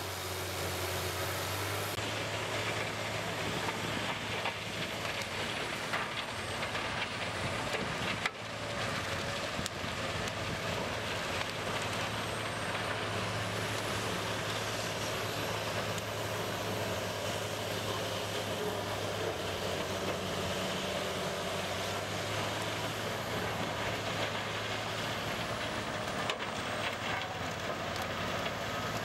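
Heavy diesel machinery running steadily: a Peterson 4710B horizontal grinder, powered by a Caterpillar C18 diesel, grinding pine plantation slash while a tracked excavator feeds it. A steady low hum runs under the noise, with a brief dip about eight seconds in.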